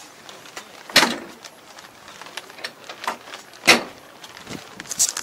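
Two sharp knocks about two and a half seconds apart, the first about a second in, with lighter clicks and taps between them and a small cluster near the end.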